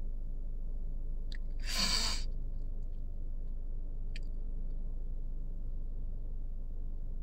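A tearful woman sniffles once, with a brief catch of voice, about two seconds in, over a steady low hum.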